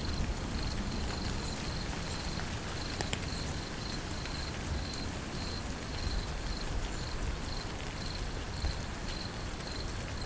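Steady rain falling, with an insect chirping in short high pulses about twice a second over it.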